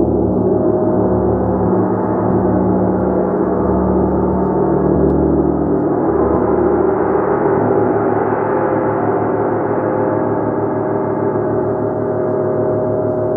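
Gong played continuously: a loud, dense wash of many overlapping sustained tones with no distinct strikes standing out. It swells brighter around the middle and eases back toward the end.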